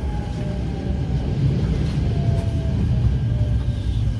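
Onboard running sound of a Keikyu New 1000 series electric train: a steady low rumble of wheels on the rails, with a faint motor whine that falls in pitch as the train slows.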